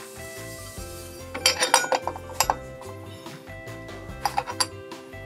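Light metallic clinks of torque converter driver parts being handled and fitted together: a quick run of clinks after about a second and a half, one more shortly after, and another run near the end, over steady background music.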